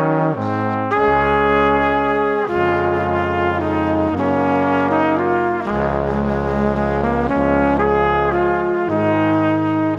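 Soundtrack music: held chords that change every second or two over a low bass line.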